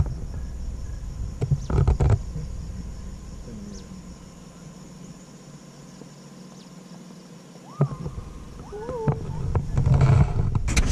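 Wind buffeting a camera mounted on the outside of a moving car, over low road noise: strong gusts near the start and again near the end, easing off in the middle. A short wavering call is heard about eight seconds in.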